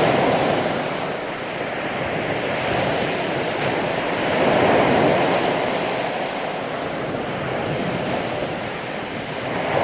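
Ocean waves washing onto a beach, a continuous rush that swells and eases, with surges near the start, around the middle and again at the end.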